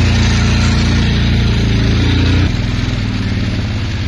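Small four-wheeler (ATV) engine running under throttle, then dropping off suddenly about two and a half seconds in as the throttle is let go, settling into a pulsing, slower run.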